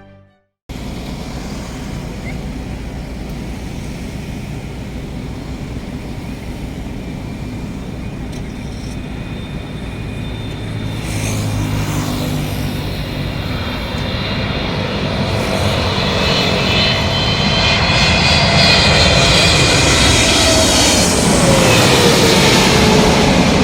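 Twin-engine jet airliner on landing approach, its engine noise growing steadily louder as it comes closer. A high whine from the engine fans builds in the second half, and a tone drops in pitch near the end as the plane passes.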